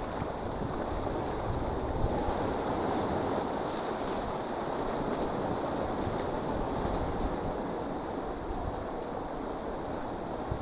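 Sea surf breaking and washing over shoreline rocks, a steady rushing that swells a little about two seconds in, with wind rumbling on the microphone.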